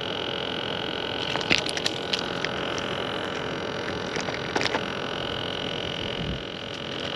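Steady outdoor noise hiss with a few short, faint clicks and taps, some about a second and a half in and more about four and a half seconds in, while a small Spanish mackerel on the line is handled and unhooked.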